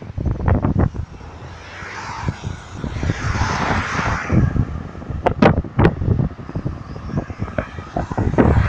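Road traffic passing on a highway: a car goes by close, with tyre and engine noise swelling and fading about three to four seconds in, over gusts of wind buffeting the microphone.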